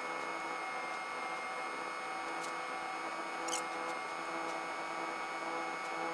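Steady electrical hum and hiss made of several fixed tones, with one short high click about three and a half seconds in.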